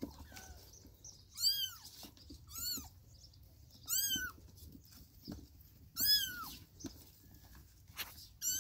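Young kittens mewing: about five short, high-pitched mews a second or two apart, each rising and then falling in pitch, with faint scuffling in between.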